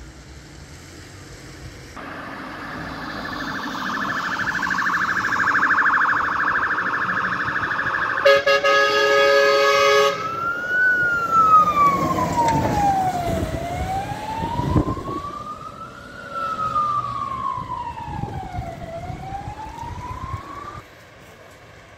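Emergency vehicle siren on an arriving vehicle: a fast-warbling siren tone, then a blast of about two seconds on its air horns, then a slow wail rising and falling twice before it cuts off near the end.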